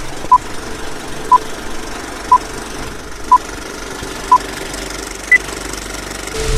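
Film-leader countdown beeps: five short, identical beeps a second apart, then a single higher-pitched beep, over a steady hiss.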